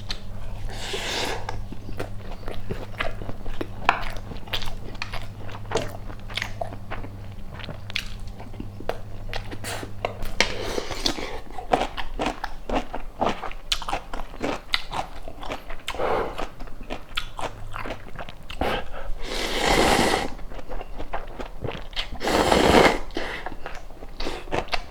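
Close-miked chewing and biting of food: a steady run of small wet clicks and crunches, with two louder, longer rushes of noise near the end. A low steady hum stops about halfway through.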